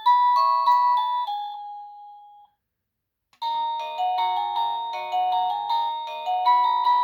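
EMASTIFF wireless doorbell playing a polyphonic electronic chime melody that dies away about two and a half seconds in. After about a second of silence, a new, busier tune starts with quick repeated notes.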